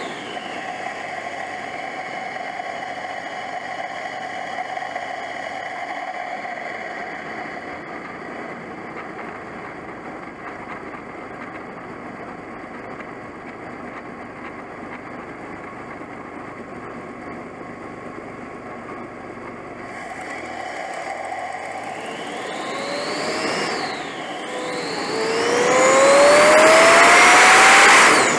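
Turbocharged car engine heard from inside the engine bay, running steadily with a rushing, whirring turbo sound for about twenty seconds. Then it builds twice: the turbo spools up with a rising whine and the hurricane noise of the turbo blowing into free air. The second surge, near the end, is the loudest and cuts off suddenly.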